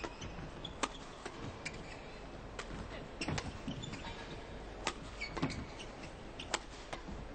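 Badminton rally: a series of sharp cracks of rackets striking the shuttlecock at uneven intervals, with short squeaks of players' shoes on the court over a steady hall background.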